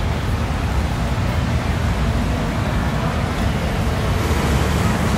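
Steady low rumble of street traffic, a continuous noise without distinct events.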